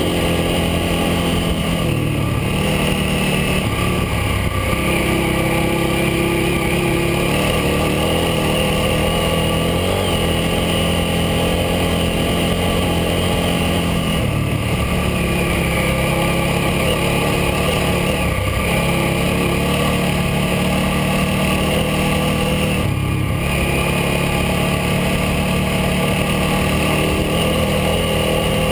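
KTM 950 Adventure's V-twin engine running at road speed, its note shifting up and down a few times with the throttle. Under it is a steady rush of wind and tyres on gravel.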